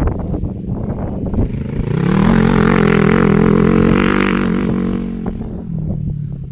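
Quad bike (ATV) engine revving up about a second and a half in, running high for a few seconds, then easing off near the end.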